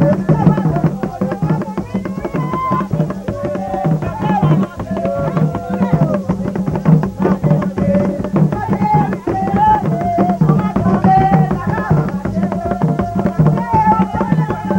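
Haitian Vodou ceremonial music: drums beating a steady, dense rhythm with voices singing over them.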